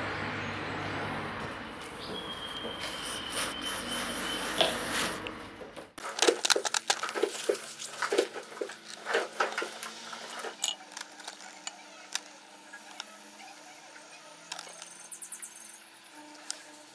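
Light clicks and clinks of small metal carburetor parts (springs, screws, levers) handled in a plastic tray, a quick run of sharp taps that thins out to occasional ticks. Before it, a steady background noise that cuts off abruptly.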